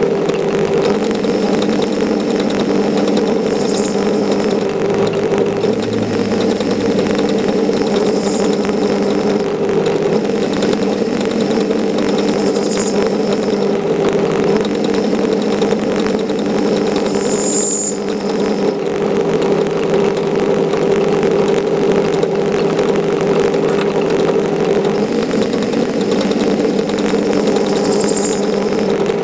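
Metal-turning lathe running steadily under power while the tool cuts a steel plate, a constant motor and gear hum. A faint high squeal comes and goes every four or five seconds.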